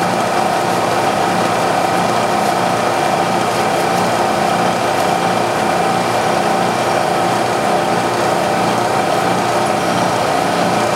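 Bridgeport-style knee mill running, its spindle turning an end mill: a steady machine whine with a clear held tone, while the table is raised to touch the cutter off on the top of a rifle bolt.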